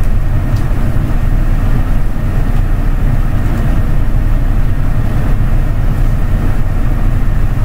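Steady low rumble of background noise, with two faint clicks.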